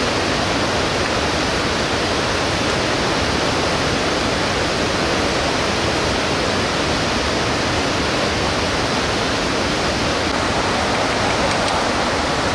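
Steady rushing of a fast river's white-water rapids.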